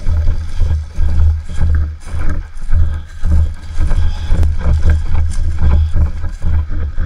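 Wind buffeting and handling thumps on a body-worn action camera's microphone while the wearer walks over grass. The low rumble pulses about twice a second, in step with the footfalls.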